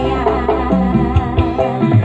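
Live electone band music played loud through an outdoor PA with 18-inch subwoofers: a woman singing over keyboard and heavy bass.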